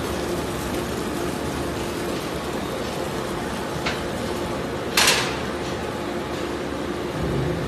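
Scrap-recycling line running: conveyors and a rotating spiked drum tearing apart mixed plastic and paper scrap, a steady mechanical hum with a constant low tone. A small knock comes just before four seconds and one loud clank about five seconds in.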